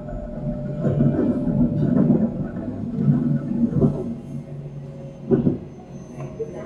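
Taiwan Railways EMU700 electric multiple unit running, heard from inside the carriage: a steady low rumble with sharp clicks at intervals of about a second, growing somewhat quieter toward the end.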